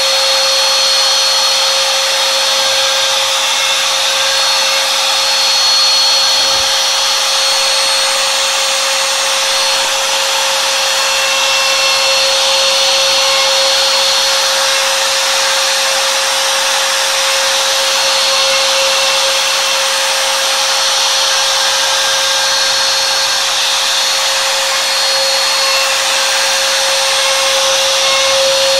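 Bosch Colt 1 hp palm router running steadily as the spindle of a CNC machine, its bit carving letters into a wooden board: a steady high whine over a hiss of cutting.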